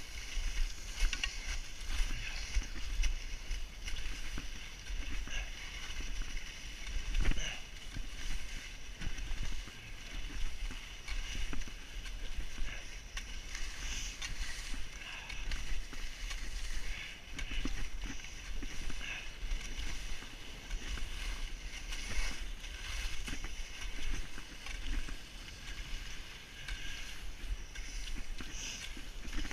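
Skis hissing and scraping over snow in a steady run of turns, swelling and fading about every second and a half to two seconds, with wind rumbling on the microphone.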